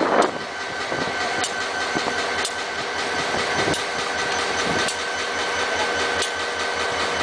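A diesel-electric locomotive's engine running steadily, with a sharp metallic click about once a second. The tail of a horn blast ends right at the start.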